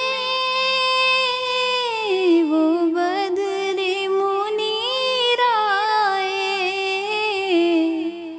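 A woman's voice singing a naat melody with no words heard. She holds a long high note, slides down about two seconds in, then sings ornamented phrases that rise and fall, breaking off near the end.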